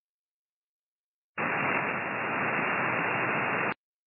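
Single-sideband receiver static from a FlexRadio 6500 software-defined radio: even band-noise hiss through the radio's narrow voice filter. It switches on abruptly about a second and a half in and cuts off just as abruptly with a faint click before the end, silent on either side.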